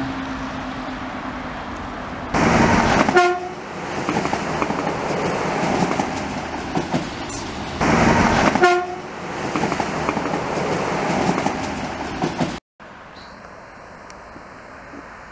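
Diesel passenger railcar sounding its horn twice on the approach to a level crossing, two blasts about five seconds apart, each under a second long. The train's running noise fills the gaps between and after them. The sound drops out abruptly near the end, leaving a much quieter steady background.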